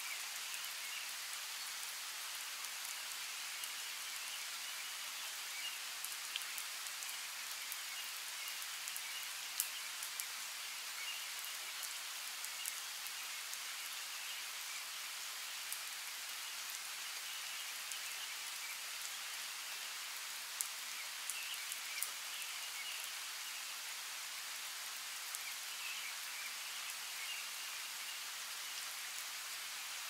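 Steady rain in a rainforest: an even hiss with scattered sharp drip ticks, and faint high chirps in the background.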